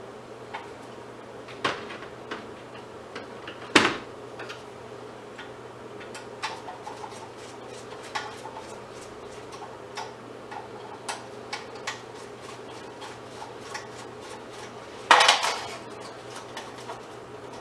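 Scrap metal parts from old light fixtures being handled and taken apart by hand: scattered clinks and clanks of metal pieces, with a sharp clank about four seconds in and a louder rattling clatter near the end.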